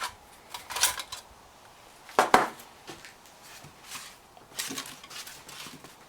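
Small hard parts being handled and set down: a scatter of knocks and clatters, the loudest a double knock a little over two seconds in.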